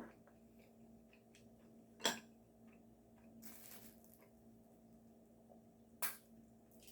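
Quiet eating sounds: utensils clicking sharply against dishes three times, near the start, about two seconds in and about six seconds in, with a soft rustle and small ticks between, over a steady low hum.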